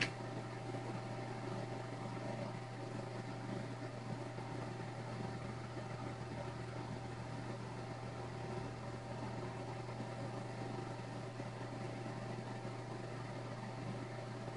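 Steady machine hum and hiss with a faint constant whine. One short click at the very start.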